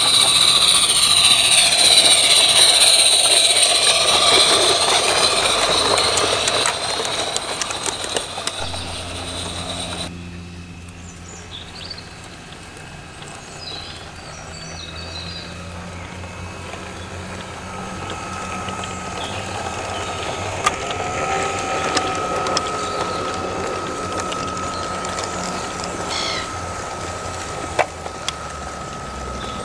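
A 16mm scale garden-railway locomotive running on 32mm gauge track: first a Locobox 'Darj' Garratt, loud with a lot of high-pitched running noise. After a sudden change about ten seconds in, a quieter diesel-outline loco hauling log wagons, with a low hum, a steady thin whine joining in partway through, and a few clicks of wheels over the track.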